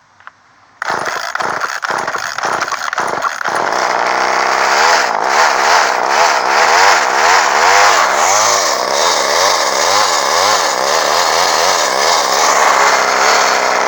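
Poulan XXV two-stroke chainsaw engine starting: it fires about a second in and runs choppy and uneven for a couple of seconds. It then settles into continuous running, its speed rising and falling again and again.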